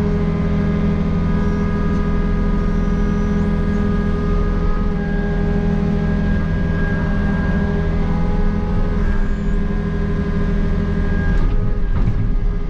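Takeuchi excavator's diesel engine running steadily under working load, heard from inside the cab. Several steady hydraulic whining tones start and stop as the boom swings the bucket over the truck and back. A couple of short knocks come near the end.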